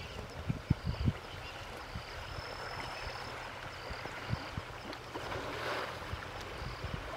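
Water sloshing and splashing around an elephant swimming in a shallow river, over the steady sound of the flowing water, with a burst of splashing about six seconds in. Low thumps of wind on the microphone and faint high chirps repeat throughout.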